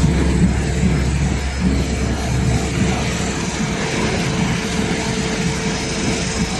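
A four-roll A4 paper sheeting and packaging machine line running steadily: a continuous mechanical clatter over a low hum, with a faint steady whine. The low hum weakens in the second half.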